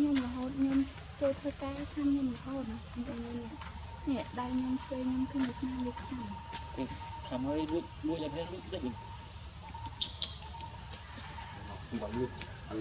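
Steady, high-pitched drone of forest insects, as two unbroken bands of sound. Lower, wavering calls come and go over it during the first nine seconds or so, and there is a brief click about ten seconds in.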